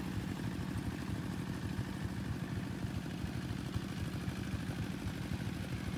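Two-wheel walk-behind tractor's small engine running steadily while it ploughs a flooded rice paddy.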